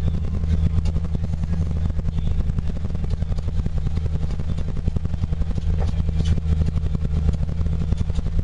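Snowcat engine running steadily, a low hum with a fast, even rattle over it.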